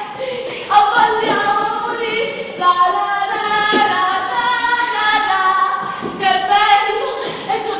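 A woman singing a melody in long held notes.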